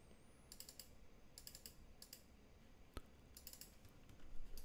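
Faint keystrokes on a computer keyboard in short bursts as a terminal command is typed, with one sharper single click about three seconds in.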